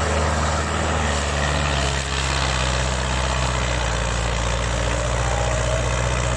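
Tractor's diesel engine running hard and steady under heavy load, straining to pull a fully loaded sugarcane trailer stuck in mud.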